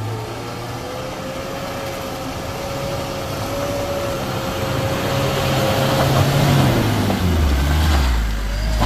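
Heavy vehicle's engine running and growing louder, with a steady whine over it for the first six seconds or so; after that the engine note drops lower.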